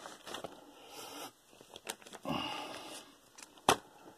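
Handling noise from a Dell Latitude D630 laptop being closed and turned over by hand: plastic scrapes and rustles, with one sharp knock about three and a half seconds in.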